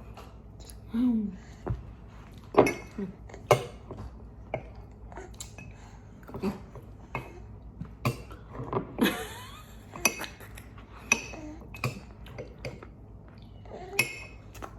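Cutlery clinking and scraping against a plate of ice cream, in irregular sharp clicks.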